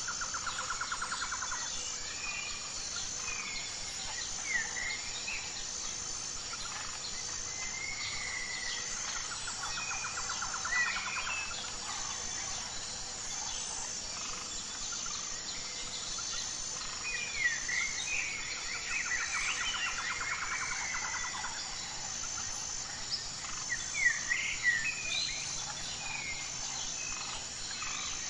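Natural soundscape of assorted birds chirping and calling over a steady, evenly pulsing insect chorus, with a buzzy trill recurring about every ten seconds.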